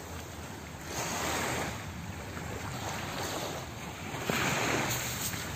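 Small waves washing onto a sandy shore, with wind on the microphone; the rush swells twice, about a second in and again near the end.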